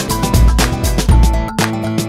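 Background music with a steady beat and a heavy bass line; the bass drops out briefly about three-quarters of the way through.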